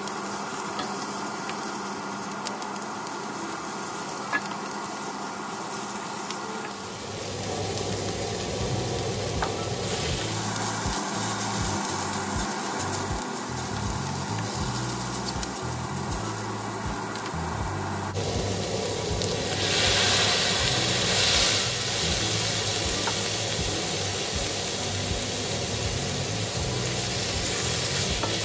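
Onions, ginger and shiitake mushrooms sizzling in a hot stainless steel wok as a wooden spatula stirs and scrapes them around. The sizzle grows louder about seven seconds in and is loudest about twenty seconds in.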